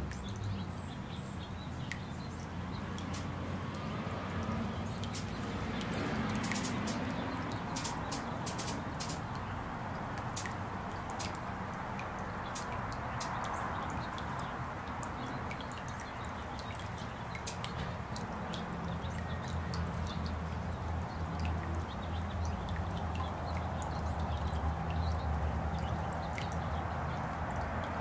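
Bird-bath fountain jet splashing water onto the bowl's stones: a steady trickle and splash with many small drips. Two short, high chirps come about five to six seconds in.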